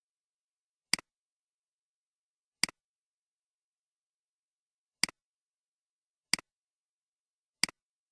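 Computer mouse clicking five times at uneven intervals, each click a quick press-and-release double tick, against complete silence.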